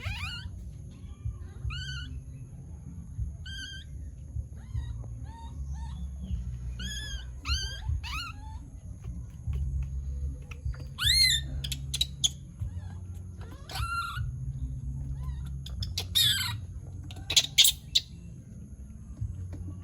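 Baby monkey giving short, high-pitched calls every second or two, some rising and falling in pitch, over a steady low rumble. The calls grow louder in the second half, with a few sharp clicks.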